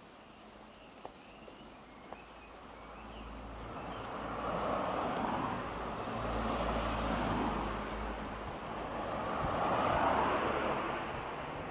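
Road traffic passing: a vehicle's engine and tyre noise swells from about three seconds in, eases, and swells again near the end.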